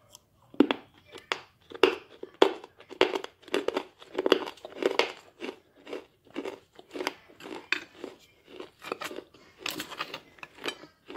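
Chewing crunchy baked clay and clay powder, a steady run of crisp crunches about two a second.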